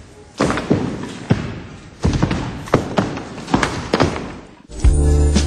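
A series of irregular thuds with rustling as plants dropped from upper windows land on a heap of palm fronds and greenery. Music starts near the end.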